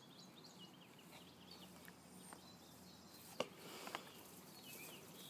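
Near silence, with faint, scattered bird chirps and two soft clicks about three and a half and four seconds in.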